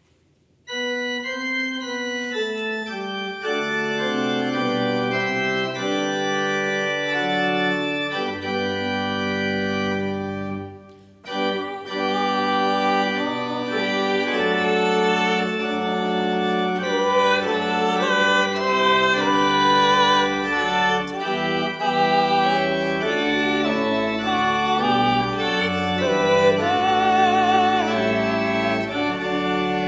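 Church organ playing sustained chords, starting about a second in, with a brief break near the middle. Some held notes waver with a vibrato.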